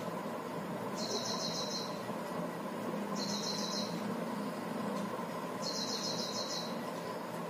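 A bird calling from outside: three short, high-pitched trilled chirps, each a quick run of about eight pulses lasting under a second, repeated roughly every two and a half seconds over a faint steady background hum.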